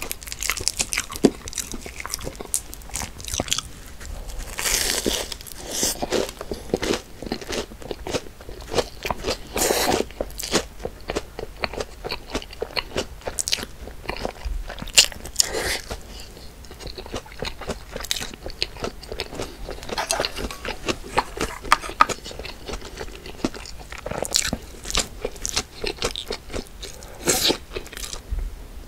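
A person eating close to the microphone: repeated crunchy bites and chewing, with louder clusters of crunching every few seconds.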